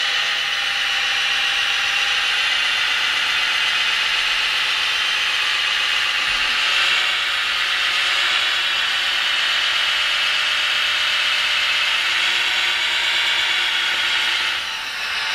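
Scale RC hydraulic Caterpillar 14M motor grader running: a steady high electric whir from its motors and hydraulic pump as it drives forward and pushes sand with its blade, dipping briefly near the end.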